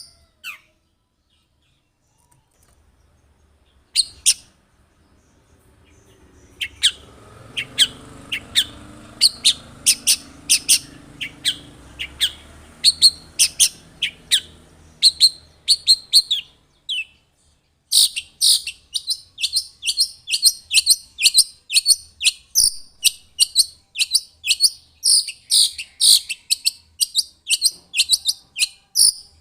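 Long-tailed shrike (cendet) singing a rapid string of short, sharp, high chirps, about three a second, with a pause of a few seconds near the start and a brief break about two-thirds of the way through.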